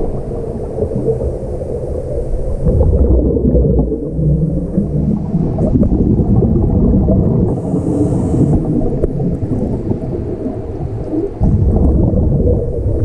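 Muffled underwater noise picked up by a submerged camera: a steady low rumble of water with gurgling from divers' bubbles.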